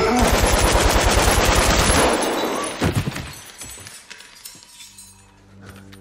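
Long burst of rapid automatic gunfire lasting about two seconds, followed by one more sharp bang a little later, then the sound dies away.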